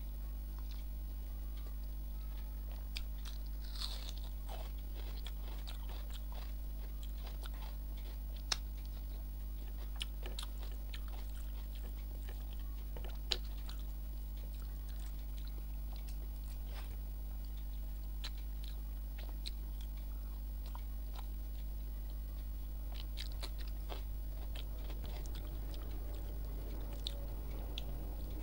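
A person chewing mouthfuls of rice and egg omelet curry eaten by hand, with scattered sharp mouth clicks and smacks over a steady low hum.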